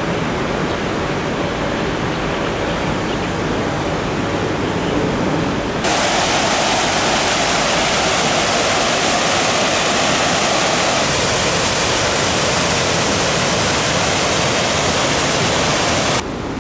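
Steady rush of water from a park fountain pouring in a curtain into its pool, cutting in abruptly about six seconds in and stopping abruptly near the end. Before it there is a quieter, steady outdoor hiss.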